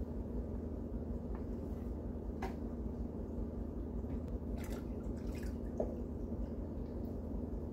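Water trickling and dripping as a small plastic container is tipped out into an aquarium, in a few short splashes over a steady low hum.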